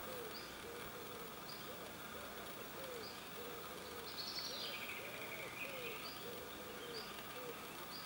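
Woodland birdsong: low, repeated cooing notes run throughout, with short high chirps about once a second. A louder call falls in pitch about halfway through.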